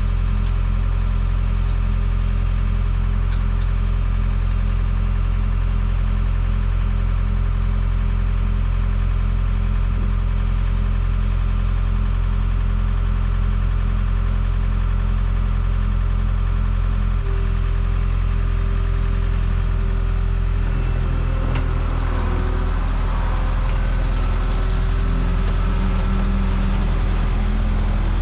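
New Holland skid steer's diesel engine idling steadily.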